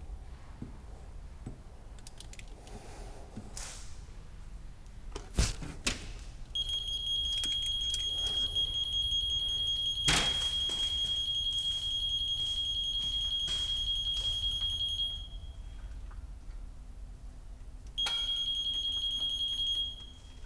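Magneto timing buzz box giving a steady high-pitched tone for about eight seconds, then again for about two seconds near the end: the signal that the magneto's points have opened as the engine is turned. A couple of sharp knocks come before and during the first tone.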